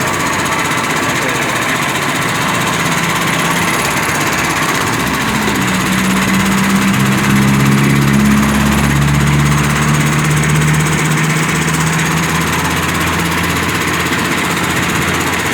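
Sugarcane crushing machine running loud and steady as split green sugarcane is ground through it. About five seconds in, a deeper hum sets in and holds for several seconds before fading back into the steady mechanical noise.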